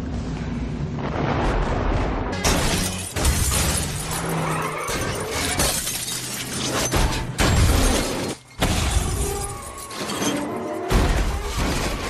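Music, then from about two and a half seconds in a movie vehicle crash: repeated crashing of metal and shattering glass as a van rolls over onto its roof, with several loud hits and music running underneath.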